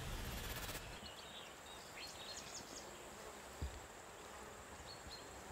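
Faint, quiet outdoor ambience: a low hiss with a few short, high chirps and one soft, low thump about three and a half seconds in.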